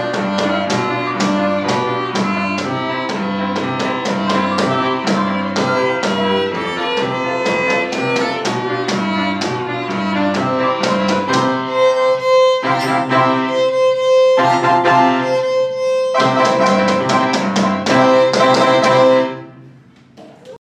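Violin and four-hand piano playing a lively piece over a steady beat of about three strokes a second. The music breaks off briefly twice after the middle, then ends on a final note about a second and a half before the end, ringing away.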